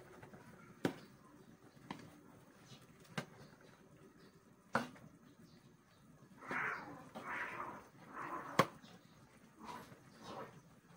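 A metal ladle clinking against a pan of lomi noodles as it is stirred: five sharp clicks spaced out. From about six seconds in, a run of short dog barks, quieter than the clicks.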